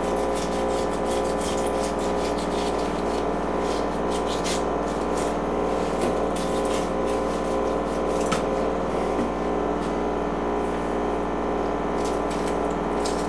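Fillet knife cutting along a striped bass's back on a wooden cutting board, rasping through the scales and skin with scattered small ticks, over a steady background hum.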